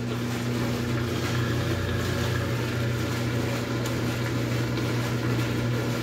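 Consul Cargo top-load washing machine humming steadily while it drains, the drain pump running at an even pitch.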